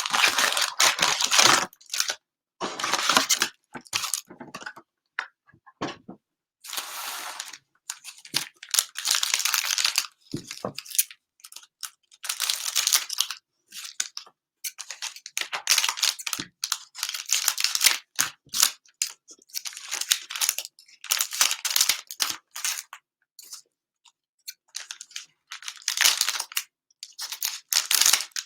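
Cellophane wrapping on trading-card cello packs being torn open and crinkled in irregular bursts, with short pauses between them.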